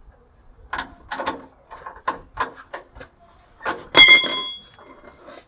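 Hand tools working bolts on the underside of a GAZ Sobol: a run of irregular metallic knocks and clinks, then one sharp metal-on-metal clang about four seconds in that rings briefly like a bell.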